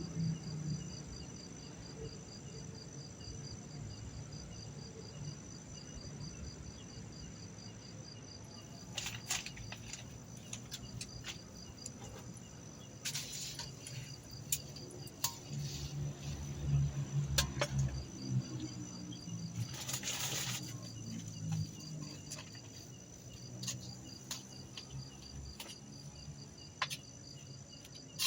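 Crickets chirping in a steady, evenly pulsing chorus, with scattered sharp clicks and knocks and a low hum that comes and goes.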